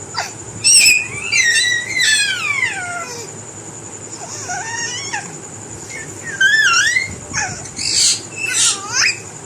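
A string of high, squeaky parrot-style calls, most sliding down in pitch, coming in clusters with short gaps between them, over a faint steady high whine.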